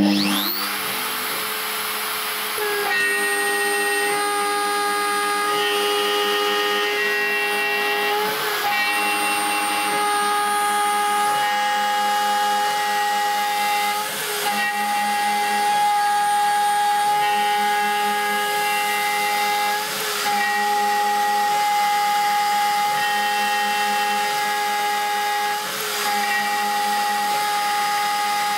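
Home-built CNC router milling a block of aluminium: the spindle starts with a rising whine, and from about three seconds in the cutter bites into the metal with a steady, high-pitched whine of several tones. The whine dips briefly every five or six seconds.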